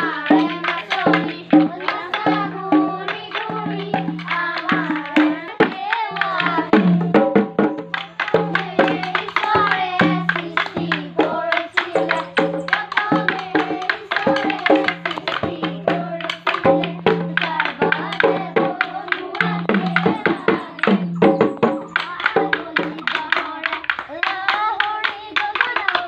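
Bihu husori: a group of young voices singing to an Assamese dhol drum and bamboo toka clappers, with a fast, dense percussive beat throughout.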